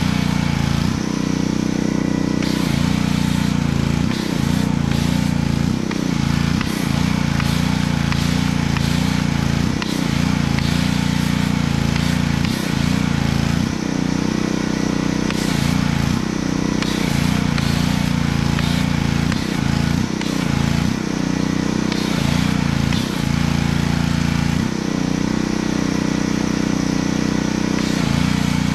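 Pressure washer running steadily, with the hiss of foam spraying from a foam cannon on its gun; the sound briefly dips every few seconds as the spray pauses.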